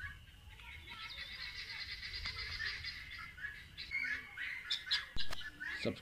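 Domestic partridges calling: a rapid chattering call from about a second in to halfway through, followed by a few scattered short calls.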